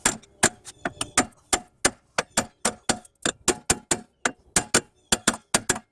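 Hammer blows on a rear disc brake rotor, fast and even at about four strikes a second. The rotor is being struck to break loose drum-in-hat parking brake shoes that are binding inside the rotor's hat, locked up by rust and cold.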